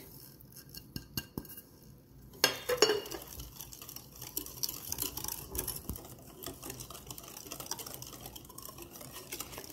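A wire whisk beating a thick batter in a glass mixing bowl: rapid, light clinks and scraping of the wires against the glass. It starts with a sharp clink about two and a half seconds in and goes on steadily after that.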